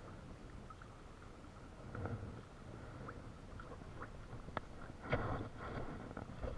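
Faint low rumble of water against a plastic fishing kayak, with scattered small clicks and knocks from handling the gear; the loudest knocks come about five seconds in.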